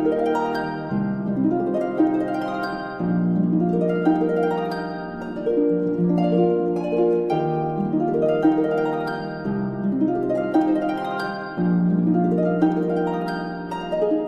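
Background instrumental music: a slow run of plucked, harp-like notes over low held bass notes that change every second or so.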